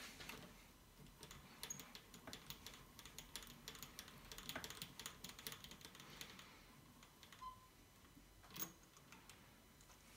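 Faint, irregular clicks and taps of small metal parts being handled as a rotary tool with a sanding drum, not running, is moved into position by the watch case. The clicks come thickly for the first six or seven seconds, then thin out, with one sharper click near the end.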